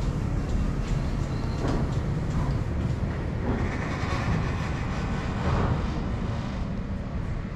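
Southend Pier Railway train pulling in along the pier track: a steady low rumble of the train on the rails, with a louder hiss in the middle that then fades.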